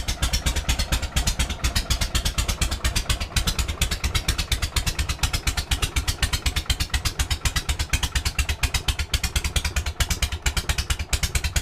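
Harley-Davidson Shovelhead V-twin engine idling steadily, its exhaust pulses coming as an even, rapid beat of about eight or nine a second.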